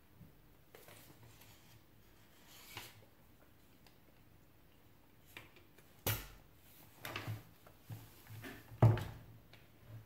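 Workbench handling sounds from a spring-loaded desoldering pump and soldering iron: quiet at first, then a handful of sharp clicks and knocks from about six seconds in, the loudest near the end.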